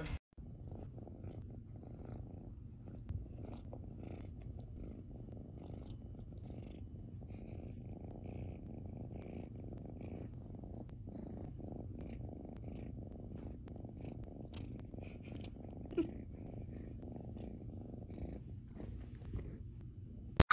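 Domestic cat purring steadily in a low, continuous rumble.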